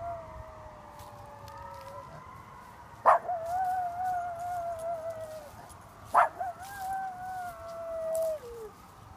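A miniature schnauzer howling, set off by a passing ambulance's siren. There are three long howls: the first trails off about two seconds in, and the next two begin with a sharp yelp about three and six seconds in. Each lasts about two and a half seconds, and the last one drops in pitch as it ends.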